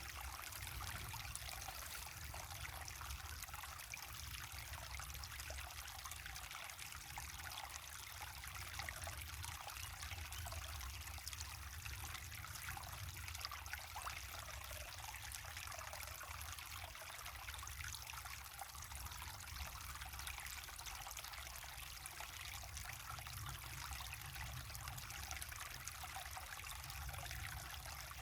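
Small waterfall and river water running: a steady splashing and trickling hiss with a low rumble beneath.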